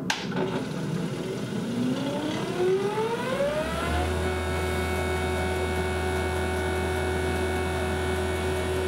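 Fieldpiece 8 CFM vacuum pump switched on with a click, its motor winding up in pitch over about four seconds, then running steadily with a low hum as it pulls a vacuum on the refrigerant system.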